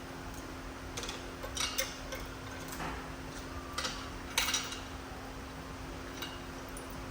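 Six or so scattered metal clinks and clanks, the loudest about four and a half seconds in, as a rebuilt engine is shifted off its engine stand onto an engine jack. A steady low hum runs underneath.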